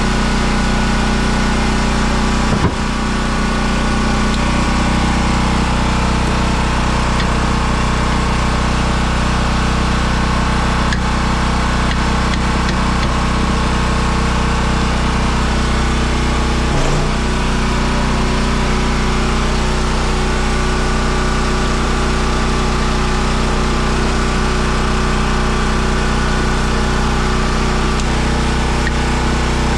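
An engine running steadily, dipping briefly twice, about three seconds in and again around seventeen seconds in.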